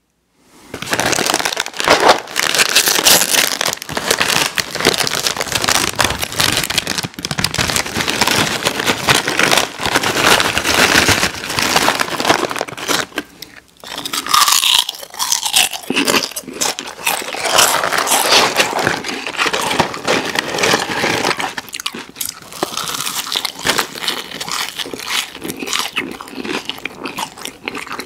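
Close-miked crunching and chewing of crisp food, including potato chips: a dense, continuous crackle of bites and chews with a brief pause about halfway through.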